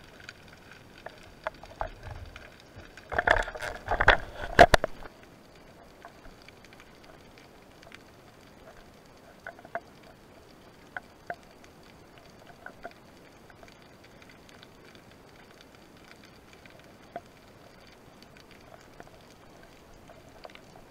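Underwater sound picked up through a camera housing: a cluster of loud knocks and clatters about three to five seconds in, as gear and catch bump against the camera, then faint scattered clicks and crackle.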